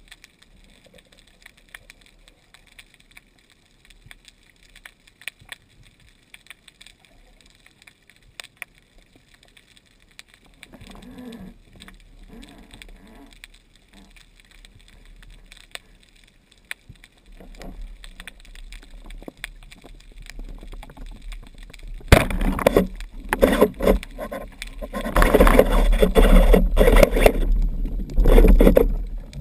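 Underwater sound of a speargun hunt. Quiet water ambience with faint scattered clicks, then a sudden loud hit about three-quarters through, followed by irregular loud rushing, knocking and scraping as the speared fish thrashes on the shaft against the gun.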